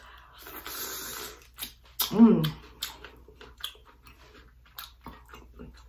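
Close-up mouth sounds of eating a spicy head-on shrimp: a wet sucking noise lasting about a second, then chewing with scattered lip smacks and clicks. A short hummed 'mm' comes about two seconds in.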